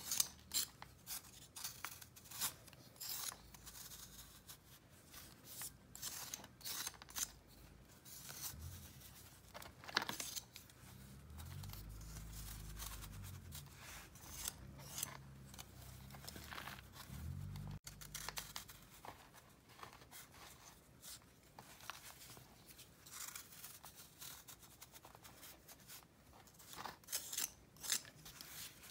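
A blade shaving a hard block of pressed powder, in short dry scraping strokes several a second that shed crunchy flakes and crumbs. A low hum runs underneath for several seconds in the middle.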